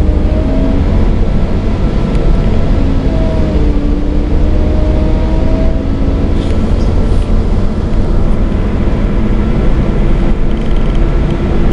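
Interior noise on the upper deck of a moving Wright Gemini double-decker bus on a Volvo B7TL chassis. Its diesel engine and drivetrain give a loud, steady low rumble, and a droning tone rises and falls as the bus changes speed.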